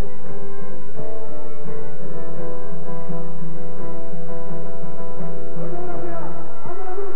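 Live folk song: acoustic guitar with several voices singing together in long, held notes.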